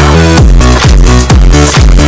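Electronic dance music with a steady kick-drum beat, a little over two beats a second, over a sustained bass line.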